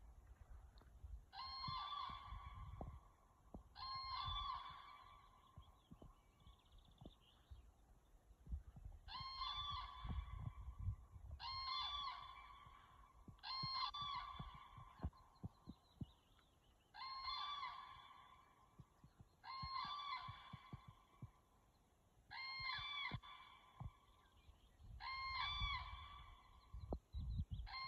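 Crane bugling: loud, trumpeting calls of about a second each, repeated every two to three seconds with a couple of longer pauses. Low thumps and rumble run underneath.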